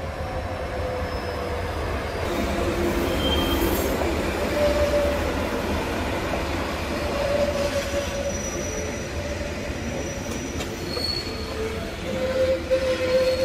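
Matterhorn Gotthard Bahn metre-gauge train rolling past, its wheels squealing in several high tones that come and go and shift in pitch over a steady low rumble of the wheels on the rails.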